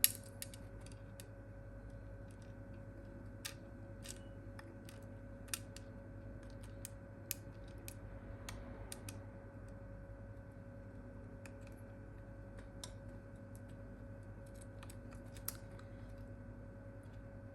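Scattered light clicks and taps of small hand tools and plastic phone parts being handled, about one every second or so, over a steady faint electrical hum.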